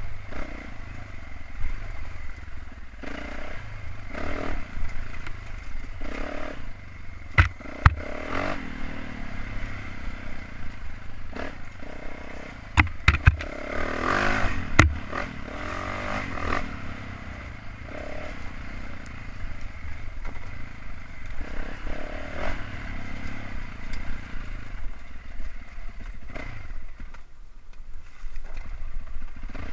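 Yamaha YZ450F four-stroke dirt bike engine running and rising and falling with the throttle on a rocky trail climb. Sharp knocks and scrapes of rocks and brush against the bike come about seven seconds in and again in a cluster around thirteen to fifteen seconds in.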